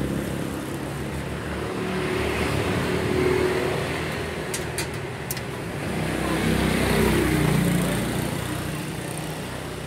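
Road traffic going past: motor vehicle engines swell and fade twice, loudest about three and seven seconds in. A few short clicks come around five seconds in.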